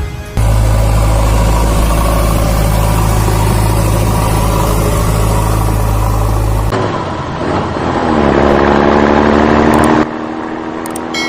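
Heavy vehicle engine running steadily at idle, then after an abrupt cut revving up with a rising pitch and holding at higher revs before cutting off suddenly near the end; spliced-in engine sound effects.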